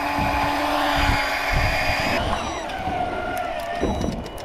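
Electric deep-drop fishing reel's motor whining steadily, then switching off about two seconds in and winding down in pitch.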